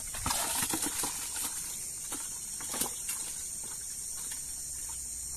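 Steady high-pitched chorus of night insects, with a few faint knocks and rustles from handling a plastic bucket in the first few seconds.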